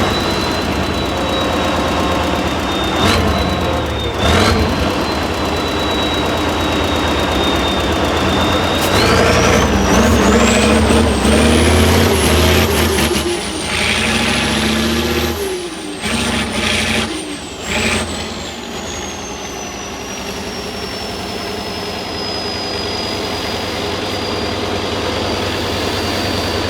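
Tatra 6x6 off-road truck's engine under load, with a high whine that follows the revs. Two knocks come around three and four seconds in. About nine seconds in the engine revs up hard, eases off a few seconds later, then runs on at lower revs as the whine slowly falls.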